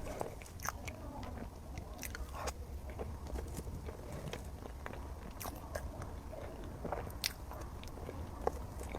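Close-up chewing of a chocolate lava mille-crepe cake: soft, wet mouth sounds with scattered sharp sticky clicks.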